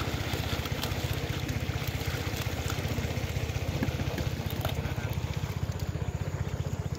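Small stationary engine running steadily, with an even rapid chug that does not change.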